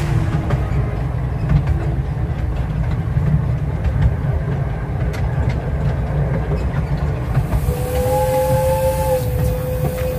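Steam train running, heard from an open carriage: a steady low rumble of wheels on the track with scattered clicks. About eight seconds in, the locomotive's steam whistle sounds a steady two-note blast with a hiss of steam; the higher note drops out after about a second and a half and the lower note holds on.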